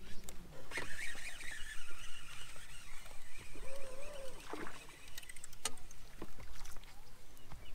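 Baitcasting reel cranked steadily as a lure is retrieved, a wavering whirr with scattered clicks, over water lapping at a boat hull and wind on the microphone. A low steady hum cuts off right at the start.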